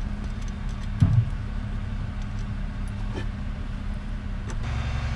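A steady low hum, growing a little louder near the end, with a dull knock about a second in and a faint click later, as small hardware and wires are handled.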